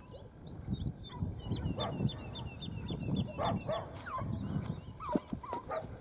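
Hare-hunting hound giving tongue on the trail: short yelping barks, several in a row in the second half.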